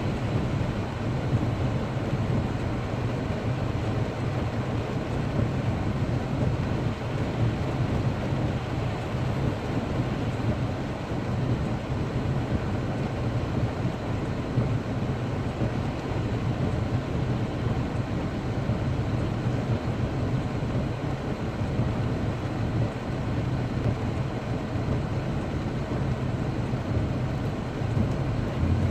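Heavy rain falling, an unbroken steady hiss with a constant low rumble underneath.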